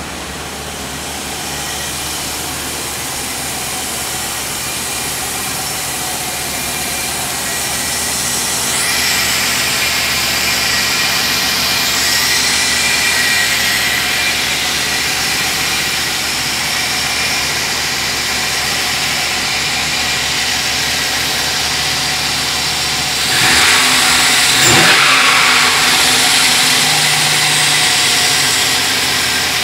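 Dodge Viper 8.3-litre V10 engine running at idle, then revved briefly a couple of times near the end.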